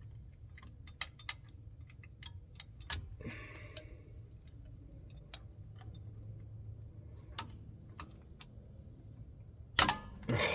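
Scattered sharp metallic clicks and light taps of hand tools against metal parts during brake work, with a short scrape a few seconds in and a louder clank near the end.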